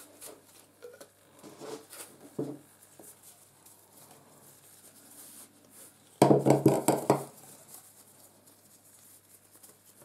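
Kitchen knife cutting on a hard chopping board: a quick run of sharp knocks about six seconds in, after a few lighter taps and handling sounds on the board.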